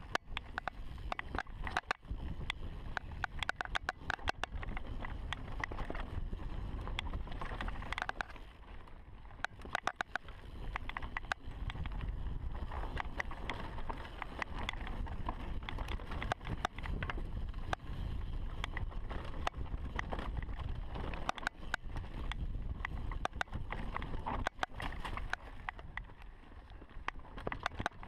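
2015 Giant Reign Advanced full-suspension mountain bike riding fast down a dirt singletrack: tyre noise over dirt and a low wind rumble on the microphone, with dense, irregular clicking and rattling over it.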